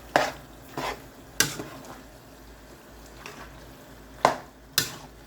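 A utensil stirring pasta and sauce in a pot on the heat, knocking sharply against the pot about six times at irregular intervals over a faint sizzle.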